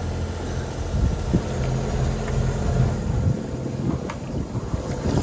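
Steady low rumble of wind on the microphone and water rushing along the hull of a sailboat under way, with a few soft knocks.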